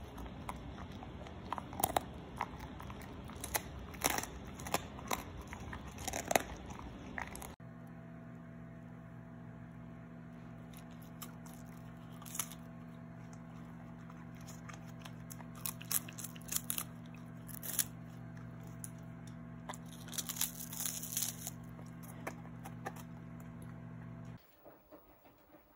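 A husky chewing and crunching food: a rapid run of sharp crunches. After a cut, the husky bites and crunches a raw bok choy stalk held out by hand, in scattered bursts of crunches over a steady low hum.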